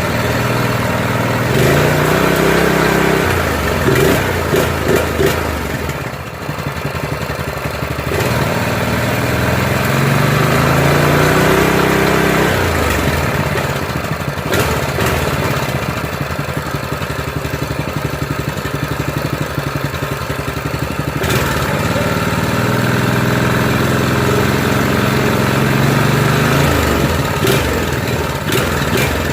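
Predator 212 single-cylinder go-kart engine running on a new carburetor, its speed repeatedly climbing and settling back as the carburetor idle is tuned.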